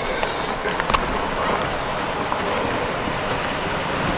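Steady rushing noise of a motor vehicle on the move, with one short knock about a second in.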